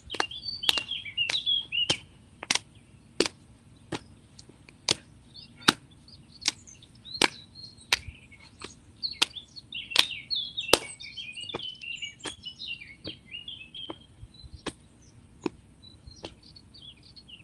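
Hands slapping rhythmically down a leg in a self-massage tapping exercise, about one and a half slaps a second, growing softer after about eleven seconds. Birds chirp in the background.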